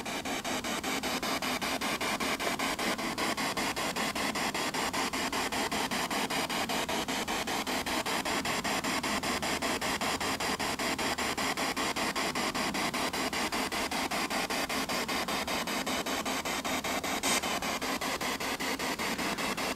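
Ghost-hunting spirit box sweeping through radio stations: a steady hiss of static chopped into rapid, even pulses, with one brief blip near the end.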